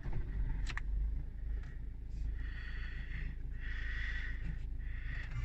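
A 2004 Volvo V50's 2.0-litre diesel engine idling with a steady low rumble, just after being started. A higher hiss swells and fades a few times in the middle.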